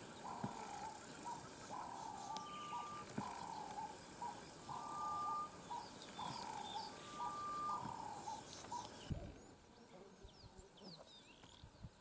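Birds calling in the bush: a repeated phrase of low, slurred notes about every second and a half, with higher chirps over it. About nine seconds in, the repeated phrase stops and only fainter, scattered chirps remain.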